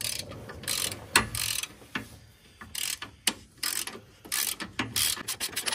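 Hand ratchet wrench clicking through repeated back-and-forth strokes as it tightens the lower mounting bolt of a new front shock absorber.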